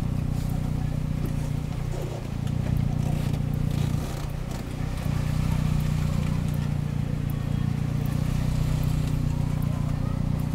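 Car engine and road noise at low speed, heard from inside the cabin: a steady low hum that dips briefly twice, about two seconds in and again about four to five seconds in.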